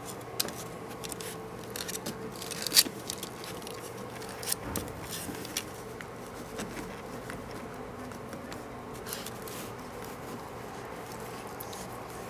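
Pembroke Welsh Corgi puppy gnawing on a toy bone and moving about on carpet: scattered small clicks and scuffs, loudest a little under three seconds in, over a steady low hum.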